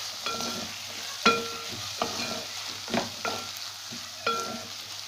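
A spatula stirring a sizzling onion, tomato and pea masala in a metal pan as freshly added spice powders are mixed in. It knocks against the pan about once a second, and each knock leaves a short metallic ring over a steady frying hiss.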